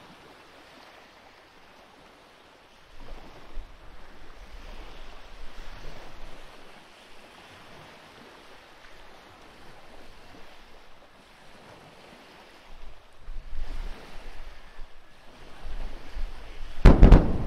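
Wind gusting on the microphone in low rumbles, then near the end a cluster of sharp, very loud bangs with a low rumble after them: the sonic boom of the returning Falcon 9 first-stage booster.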